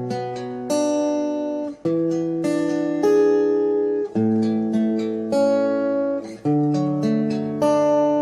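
Acoustic guitar music: plucked and strummed chords ringing out, with a new chord struck about every second.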